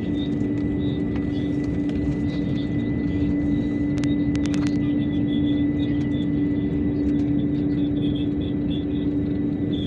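Airliner engines running, heard from inside the passenger cabin around takeoff: a steady rushing noise with a constant low hum, and a few sharp clicks about four seconds in.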